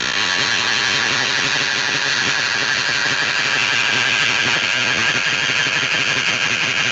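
An engine running steadily at an even pitch, starting abruptly and cutting off suddenly about seven seconds in.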